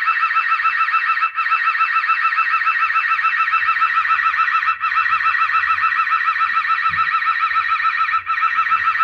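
Built-in siren of a Dahua active-deterrence dome security camera sounding a loud, rapidly warbling alarm, set off by its PIR motion sensor. The tone cuts out for an instant three times, about every three and a half seconds.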